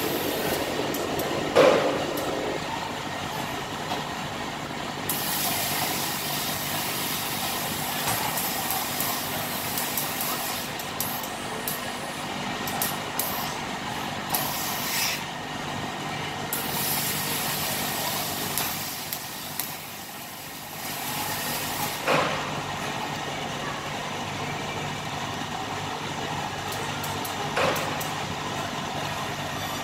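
Industrial steam iron hissing in long stretches as steam is let out, over a steady machine hum, with a few sharp knocks.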